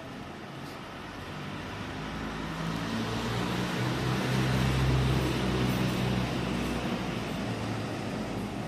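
A motor vehicle's engine passing by: it grows louder to a peak about halfway through, then fades somewhat.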